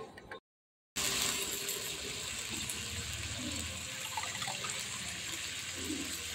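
Leafy greens and sliced onions sizzling in hot oil in a steel kadai: a steady frying hiss that starts abruptly about a second in.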